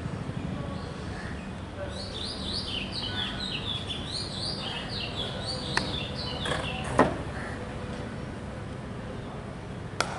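Birds chirping in quick, high runs over a steady low background. Three sharp knocks come through, the loudest about seven seconds in: cricket bat striking the ball in net practice.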